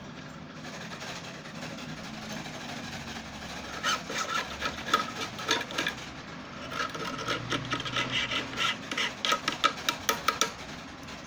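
Small hand file scraping along a freshly cut duplicate key to deburr it. A run of quick filing strokes starts about four seconds in and stops shortly before the end.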